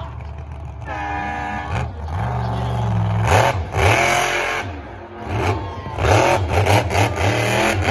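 Krazy Train monster truck's engine revving hard and falling back again and again, with loud surges about three seconds in and again near the end as the truck wheelies over crushed cars.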